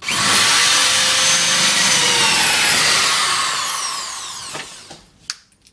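Power drill running at speed, then winding down as its pitch falls and it stops about four and a half seconds in; a short click follows near the end.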